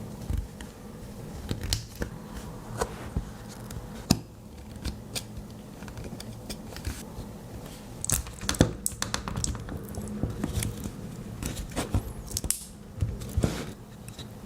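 Scattered small clicks, snips and scratching as a small plastic earphone is handled and cut or pried apart, with a denser run of sharp clicks around the middle and again near the end.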